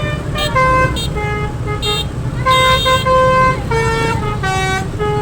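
Telolet horn, a multi-tone melodic vehicle horn, playing a tune of short held notes that step up and down in pitch, over a steady engine rumble.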